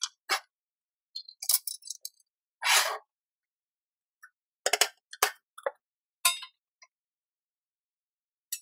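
Metal parts being handled, clinking and knocking: a string of short, separate clicks and clinks, with a brief scrape about three seconds in.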